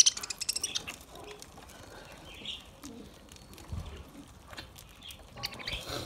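A flock of budgerigars chirping and chattering while they feed, with scattered sharp clicks. A dense burst of chirps comes right at the start and another near the end.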